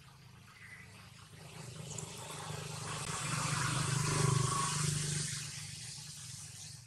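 A motor vehicle passing: a low engine hum with broad road noise that swells to a peak a little past the middle and then fades away.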